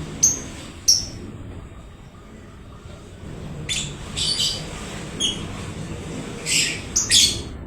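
Parblue lovebird giving short, sharp, high-pitched chirps and squawks: two single chirps at the start, then bunches of calls around the middle and near the end.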